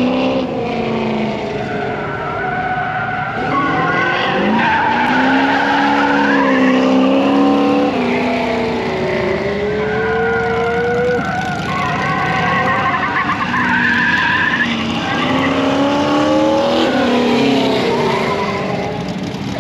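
A pickup truck's engine working hard through an autocross run, revving up and dropping back again and again as it accelerates, shifts and brakes, with tires skidding and squealing through the turns.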